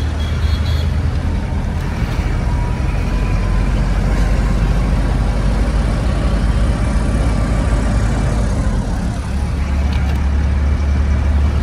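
Truck engine and road noise heard from inside the cab while driving: a steady low rumble that eases for a few seconds midway, then picks up again.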